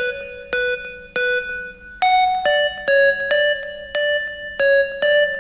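Electric-piano melody of single plucked-sounding notes, about two a second, stepping up in pitch after a short pause about two seconds in, then repeating around one note.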